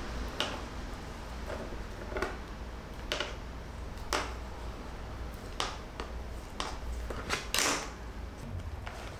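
Scattered short taps and scrapes, about ten of them, with one longer rasp near the end, as a bone folder presses and rubs a thin strip against a wooden workbench. A steady low hum lies underneath.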